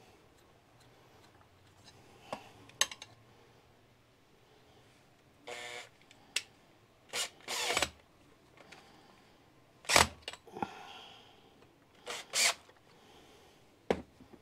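Makita 18V cordless drill-driver running in short bursts, about five times, driving screws back into a bench grinder's base, with clicks of parts being handled in between.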